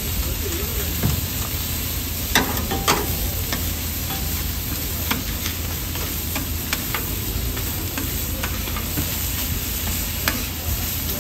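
Eggs frying on a hot flat-top griddle, a steady sizzle. Several short sharp clicks and scrapes of a metal spatula on the griddle as the eggs are lifted.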